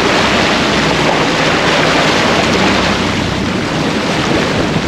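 Steady, loud rushing of wind on the microphone and sea water around a fishing boat, with a low hum from the boat's engine underneath.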